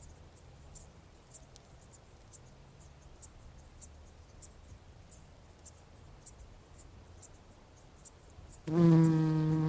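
Bumblebee buzzing close past the microphone near the end, a loud low drone whose pitch sinks slightly. Before it there is only a faint background with scattered soft ticks.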